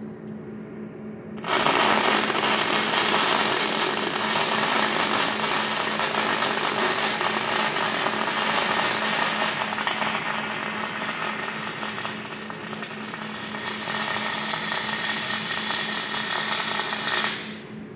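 A KUKA welding robot's torch arc welding: a loud, steady, noisy arc sound starts abruptly about a second and a half in and cuts off abruptly near the end, over a steady low hum.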